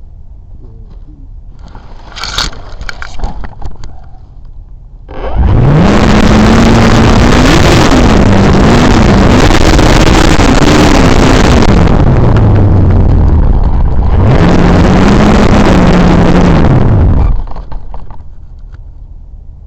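E-Flite Draco RC bush plane's electric motor and propeller throttled up twice: a long burst of several seconds whose pitch rises, wavers and then sinks low, then a shorter burst that cuts off suddenly. Faint scraping and clicks come before the first burst.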